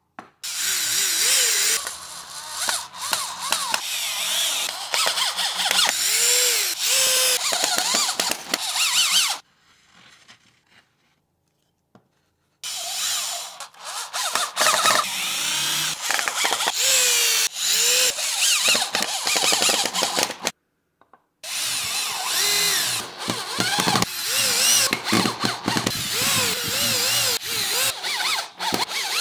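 Electric drill driving screws into plywood, its motor whine rising and falling as the trigger is squeezed and released, in three long stretches separated by two short silences.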